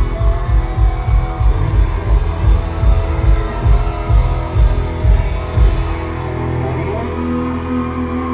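Pop-rock band playing live with a steady heavy drum beat that stops about six seconds in, leaving held chords ringing on.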